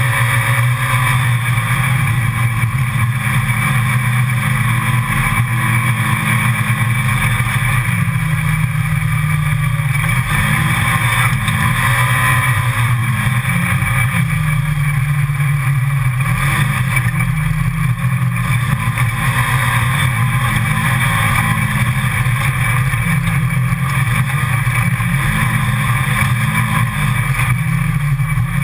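Side-by-side utility vehicle's engine running steadily as it drives along a dirt trail, its pitch rising and falling a little several times as the speed changes, over a steady rush of noise.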